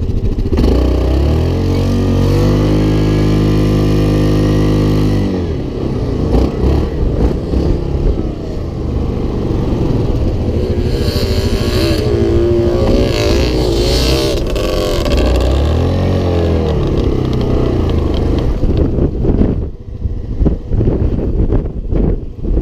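Sport quad's engine heard from on board: it is held at high revs for a few seconds, then rises and falls with the throttle while climbing through soft sand. Near the end the engine note gives way to wind buffeting the microphone.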